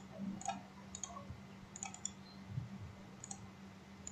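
Several quiet computer mouse clicks, scattered and irregular, over a faint steady low hum.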